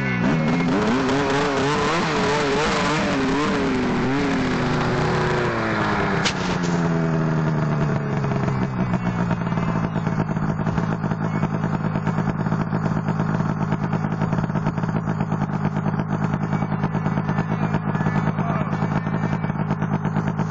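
A snowmobile engine close by, revving unevenly, then dropping to a steady idle about six to nine seconds in.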